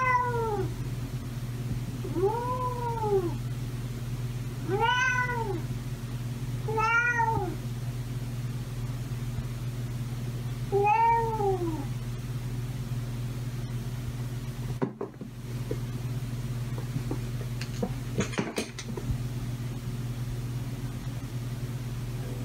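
Calico house cat meowing repeatedly, about five drawn-out meows each rising then falling in pitch, every two to three seconds, over a steady low hum. After the meows stop, a few sharp knocks follow.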